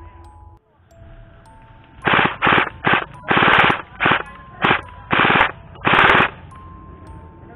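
Airsoft rifle firing on full auto: eight short bursts of rapid shots packed into about four seconds, starting about two seconds in.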